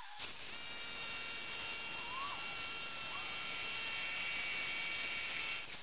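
Power drill with a masonry bit boring a hole into a concrete slab, running steadily for about five and a half seconds with a steady motor whine and high grinding hiss, starting and stopping abruptly.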